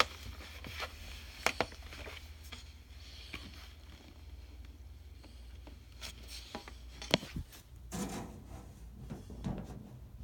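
Scattered small clicks and taps with rubbing and scraping, busier about eight seconds in, over a low steady hum.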